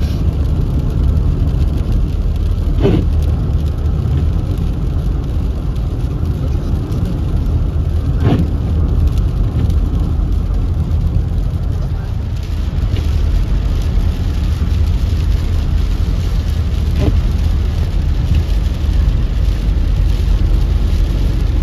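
Steady road noise heard inside a moving car's cabin: a low rumble from the engine and from tyres running on a wet freeway. Three brief sharp ticks come through it, about three, eight and seventeen seconds in.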